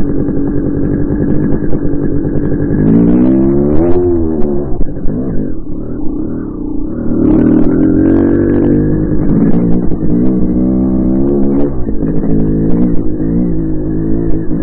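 Dirt bike engine being ridden hard, revving up and falling back again and again as the throttle is worked. It sounds muffled, as picked up by a low-quality camera mounted on the bike.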